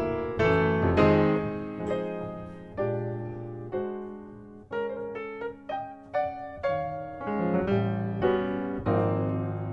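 Grand piano playing a slow jazz ballad: chords struck and left to ring, thinning to sparser single notes midway, then filling out again.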